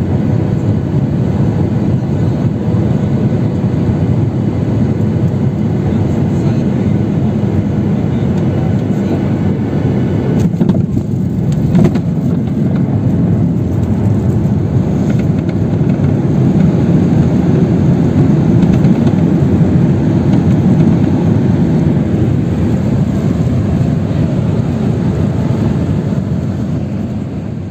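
Jet airliner's engines and rushing air heard inside the cabin during landing: a loud, steady noise as the plane comes in over the ground and rolls down the runway. There are a couple of brief knocks about eleven seconds in, the noise grows louder for several seconds mid-way, and it eases off near the end.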